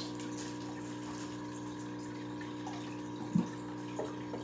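Aquarium filter running: a steady hum with water trickling, and one short louder sound a little over three seconds in.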